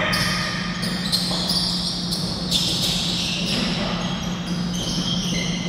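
Basketball game sounds on a gym's plastic tile court: a ball bouncing and short high-pitched sneaker squeaks as players run, over a steady low hum.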